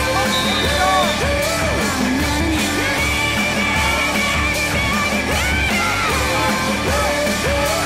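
Music with a steady beat and a singing voice.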